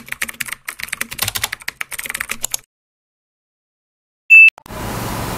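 Computer keyboard typing sound effect: a rapid run of key clicks for about two and a half seconds, then silence. A little past four seconds in comes one short, loud, high beep, and just before the end a steady outdoor background noise fades in.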